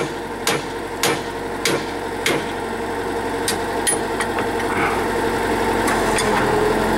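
Drill rig's engine running steadily, with sharp metallic knocks about every 0.6 s for the first two seconds or so, then only a few scattered ones as the engine grows a little louder.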